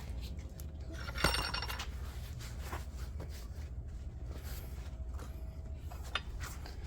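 A single sharp metal-on-metal strike with a brief ring about a second in, followed by a few faint clinks. It comes from knocking at the CV axle joint held in the vise to pop it off the shaft, an attempt that does not free it.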